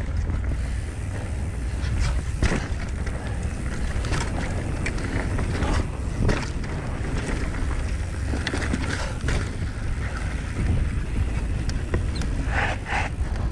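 Mountain bike rolling fast over a dirt trail: a steady rumble of wind and tyres on the camera microphone, with frequent sharp rattles and knocks from the bike over bumps. Two brief higher sounds stand out near the end.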